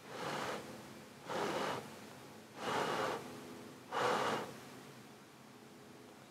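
A person blowing short puffs of breath onto a flower's petals, four puffs about a second and a half apart.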